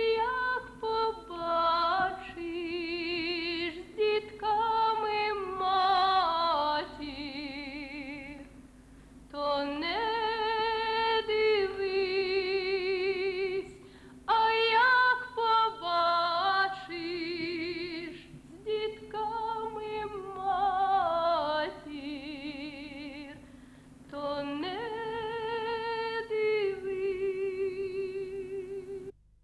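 A woman singing a slow melody with strong vibrato, in long held phrases separated by short pauses. The singing cuts off abruptly near the end.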